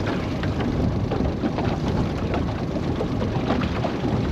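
Steady rushing of wind on the microphone and water around a small aluminium boat, with light splashes and patter.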